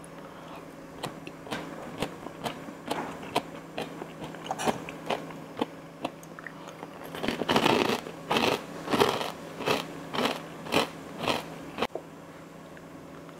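Crunchy food being bitten and chewed close to the microphone: a run of crisp crunches that grows louder from about halfway through, at roughly two a second, and stops shortly before the end.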